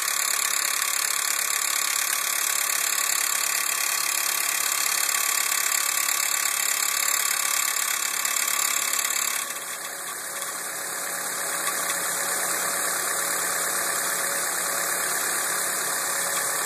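Chevrolet Astra four-cylinder Flexpower engine idling cold with a strange noise, which the owner links to the manifold. About halfway through, the sound changes suddenly and dips for a moment, then goes on more evenly: the strange noise stops.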